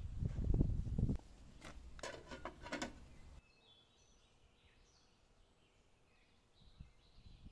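Handling of a steaming aluminium pot on a wood-fired clay stove: a brief low rushing noise, then several clinks and knocks. After a sudden cut, small birds chirp faintly in quiet outdoor ambience.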